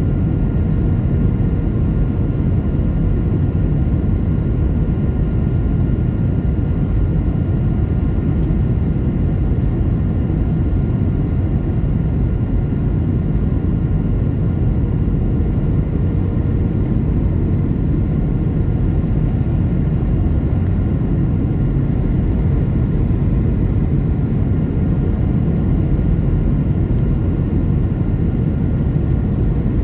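Steady cabin noise inside a Boeing 737-800 descending to land: the even drone of airflow and its two CFM56 turbofan engines, with a faint steady hum.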